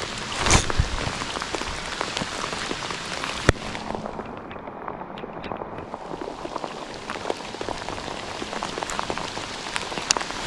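Steady rain falling, with many separate drops ticking close by. There is one sharp tap about three and a half seconds in.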